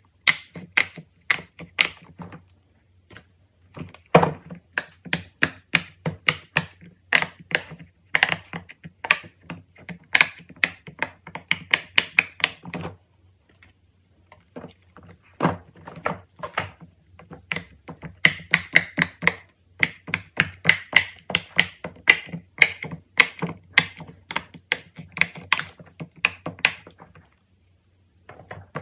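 Fidget toys being pressed and popped: rapid runs of sharp clicks, several a second, with short pauses about three seconds and fourteen seconds in.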